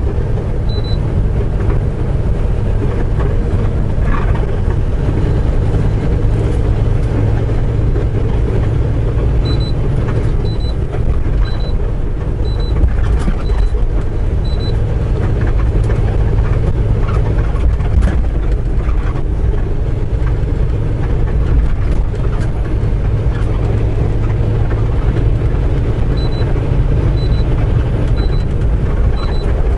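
Semi truck's diesel engine droning steadily with road noise, heard inside the cab at highway speed. A short high beep repeats about once a second for several seconds, once about a third of the way in and again near the end.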